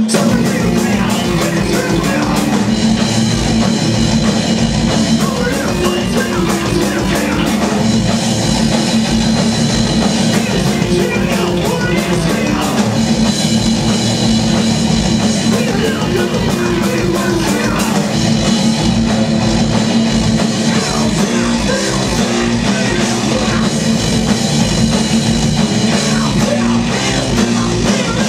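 A thrash metal/hardcore band playing live, with electric guitars, bass and drums. The drums keep up a fast, steady stream of strokes.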